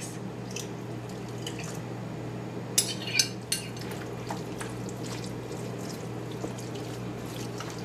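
Thick chile sauce poured from a glass bowl onto shredded beef, then a spoon stirring the wet meat in a glass bowl, with a few light clinks of spoon on glass about three seconds in, over a steady low hum.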